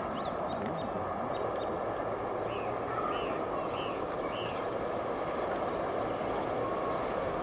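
LMS Princess Royal class 4-6-2 steam locomotive no. 6201 Princess Elizabeth approaching under steam, its exhaust heard as a steady rushing noise. A small bird chirps several times in the first half.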